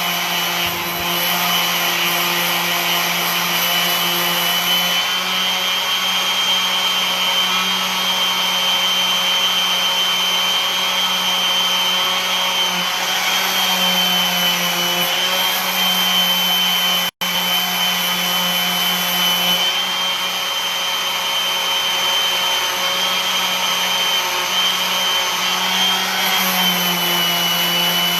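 Electric sander running steadily with 80-grit paper on a wooden bass neck, its motor whine wavering slightly with the load. The sound cuts out abruptly for an instant about two-thirds of the way through.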